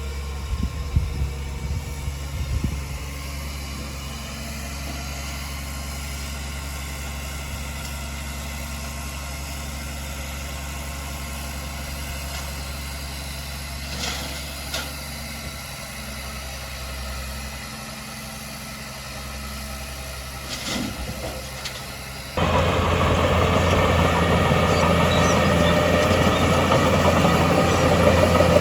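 Diesel engine of heavy earthmoving machinery running steadily at low revs, with a few clanks. Near the end the engine sound suddenly gets much louder and busier.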